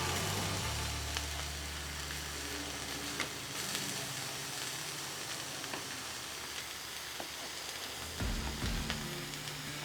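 Food sizzling on a hot flat-top griddle: a steady frying hiss, with a few light clicks and taps.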